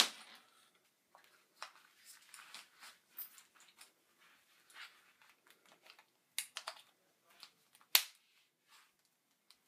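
Scattered faint clicks and taps, with one sharper click about eight seconds in.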